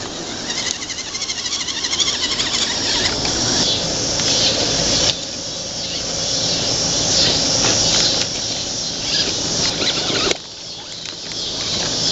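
Electric motor and gear drivetrain of a radio-controlled rock crawler whining at a high pitch as it crawls over rocks. The whine rises and falls, and drops off sharply about five seconds in and again about ten seconds in.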